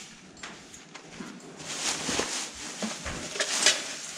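Plastic trash bag and papers rustling and crinkling as they are handled, quiet at first and louder from about one and a half seconds in.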